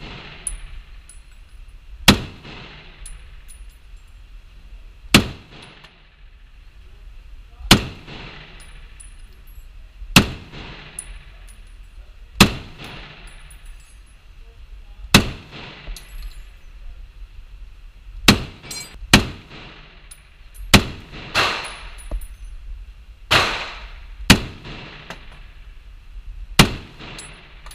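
M1 Garand rifle (.30-06) firing single shots, about one every two to three seconds, with a few quicker pairs in the second half. Each shot is a sharp report that echoes briefly in an indoor range.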